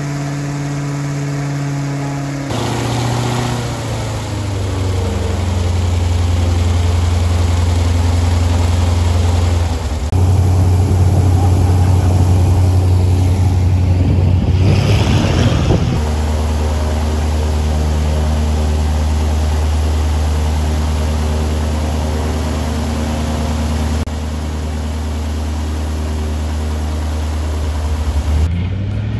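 Large 13-litre, 780-cubic-inch high-compression piston engine and propeller of a bush plane running on the ground. Its note steps up to higher power about two seconds in and runs loud and steady, with a rising rush about halfway, and the sound breaks off abruptly several times.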